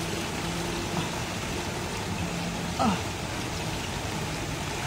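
Steady rush of shallow flowing floodwater and rain, with a few short chirping calls over it, the loudest about three seconds in.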